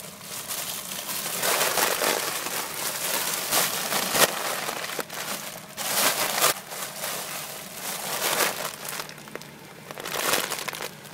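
Foil helium balloon crinkling and rustling in uneven bursts as it is squeezed and handled at the mouth while helium is drawn from it.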